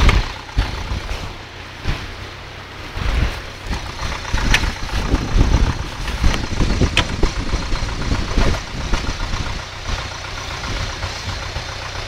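Off-road 4x4's engine running steadily while the vehicle sits stuck in deep mud, with uneven rumbling swells and a couple of sharp knocks partway through.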